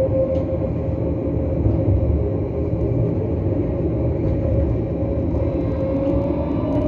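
Tram in motion, heard from inside the car: a steady low running rumble with a whine from the drive that rises in pitch near the end.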